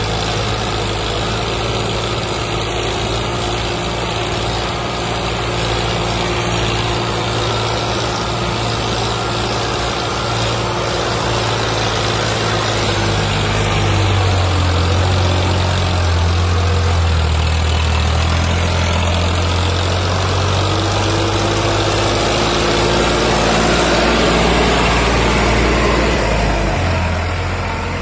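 Farmtrac 60 EPI PowerMaxx tractor's diesel engine working hard under heavy load as it tows a loaded truck, with the front wheels lifting. The engine note deepens and strengthens about halfway through, grows loudest near the end and then eases off.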